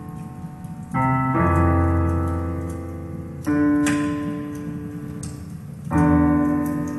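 Slow piano music: sustained chords struck about a second in, again past the middle and near the end, each left to ring and fade.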